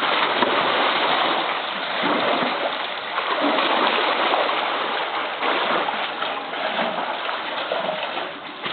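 Polar bear splashing hard in its pool water while playing with a float. Churning splashes go on throughout, easing a little near the end.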